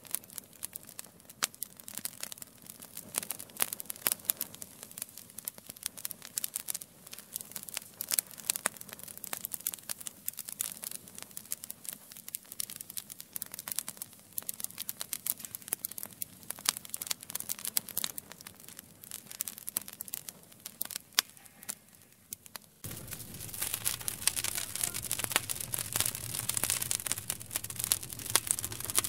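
Wood fire crackling, with many irregular sharp pops and snaps. About 23 seconds in the sound abruptly becomes louder and fuller, with a steady rush of flames under the crackling.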